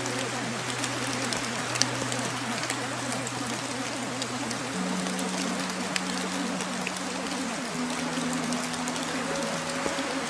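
Steady rain noise with scattered drop ticks, over soft sustained low music chords that change about five and eight seconds in.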